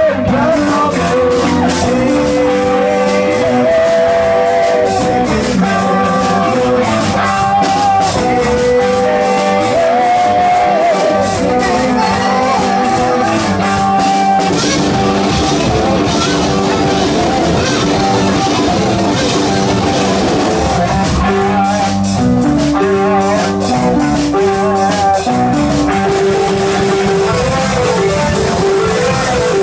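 Live rock band playing an instrumental stretch of a song: electric guitar, bass guitar, drum kit and a Roland JV-30 keyboard, loud and steady throughout.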